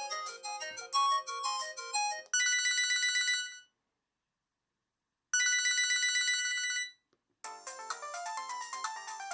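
LG KP100 mobile phone ringtones. A polyphonic electronic melody ends, then a rapidly pulsing electronic ring sounds twice with a complete silence between. Near the end, another polyphonic melody begins.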